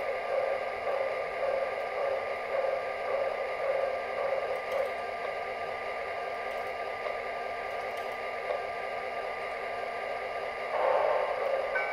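MTH RailKing J3a Hudson O-gauge model steam locomotive's sound system idling in place: a steady steam hiss over a low electrical hum, with soft pulses about every two-thirds of a second at first. A louder swell of hiss comes near the end.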